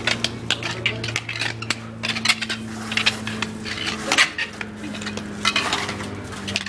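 Metal tools clinking and scraping in quick, irregular strokes over a steady motor hum.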